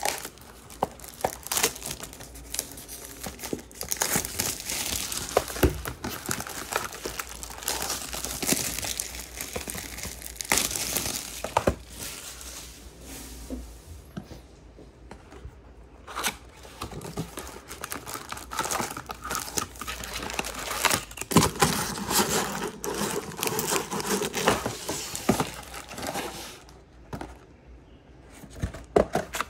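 Plastic packaging of a 2022 Topps Chrome hobby box crinkling and tearing as the sealed box is unwrapped and opened, in irregular spells with sharp clicks and a couple of short pauses.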